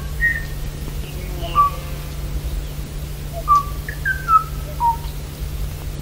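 Kauaʻi ʻōʻō (Moho braccatus) singing: short whistled notes at varying pitches, spaced a half second to a second apart, over a steady low hum and hiss.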